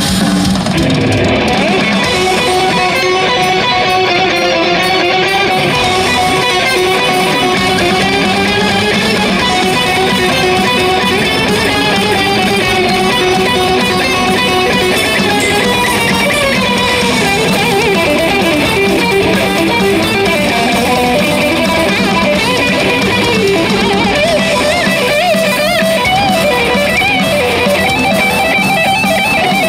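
Distorted electric guitar with Seymour Duncan Blackouts active pickups, played through Seymour Duncan Palladium gain and 805 overdrive pedals into a Seymour Duncan PowerStage amp and speaker cabinet. The playing is continuous lead lines, the pitch wavering in bends and vibrato.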